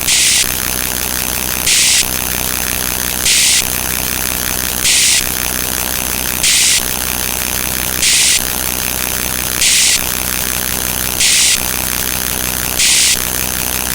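Dense din of many overlapping electronic sound effects, heard as a steady buzzing hum under static, broken by a short burst of hiss about every second and a half, nine times.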